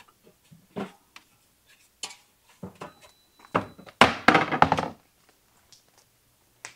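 Rummaging through a lower kitchen cabinet: scattered knocks and thunks of things being moved about, then a loud burst of clattering about four seconds in.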